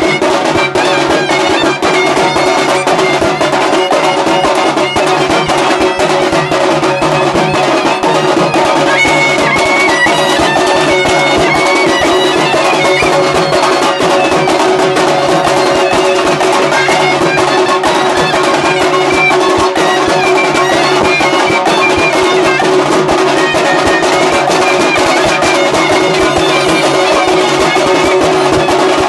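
Loud live brass band music: a brass instrument plays a wandering melody over constant, fast drumming.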